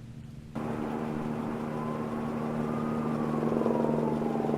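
Car engine idling. It comes in abruptly about half a second in and grows slightly louder, with a faint whine that slowly rises and then falls.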